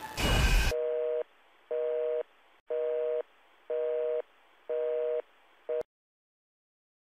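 A short, loud burst of static, then a telephone busy signal: a two-tone beep repeating about once a second, five full beeps and a sixth that is cut off short, after which the sound stops suddenly. The tones have a thin, phone-line sound.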